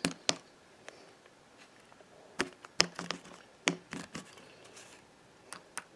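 Irregular light taps and clicks of a plastic Littlest Pet Shop figure being handled and hopped across a surface, some coming in quick pairs or small clusters.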